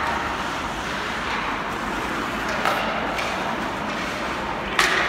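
Ice hockey game in a rink: a steady wash of play and crowd noise, with two sharp knocks, one about two and a half seconds in and a louder one near the end.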